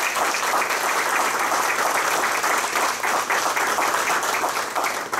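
Audience applauding: a steady round of hand clapping.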